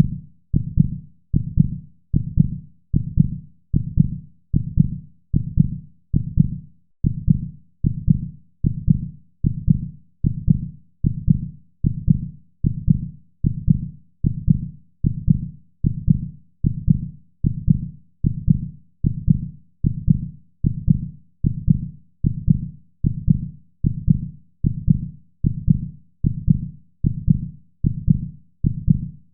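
Heartbeat: deep, low thumps in a steady, even rhythm, about two a second, with no other sound.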